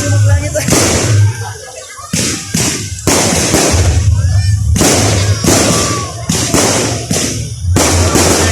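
Fireworks going off in a rapid, irregular string of bangs and thuds, with music playing underneath.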